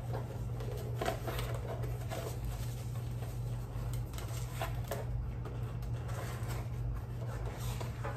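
Soft handling sounds of a cardboard gift box being closed and pressed shut: faint rustles of tissue paper and a few light knocks of the lid, over a steady low hum.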